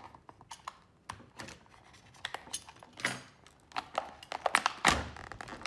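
Stiff clear plastic blister packaging being cut with scissors and pulled open: irregular crackling and clicking, with louder snaps of plastic about three and five seconds in.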